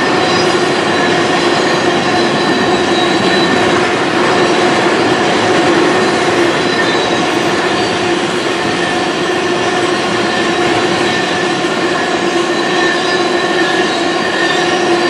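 Freight train of tank cars rolling past at trackside: a steady loud rumble of steel wheels on rail, with steady whining tones from the wheels held over it.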